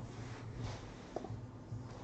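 Faint handling sounds of hands touching and gripping sealed cardboard boxes, with a small tick a little over a second in, over a low steady hum.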